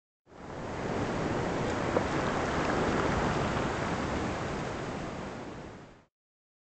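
Ocean surf washing steadily, fading in at the start and fading out shortly before the end, with a single faint click about two seconds in.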